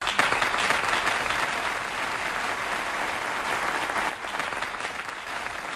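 A crowd applauding, starting abruptly as a dense patter of many hands clapping.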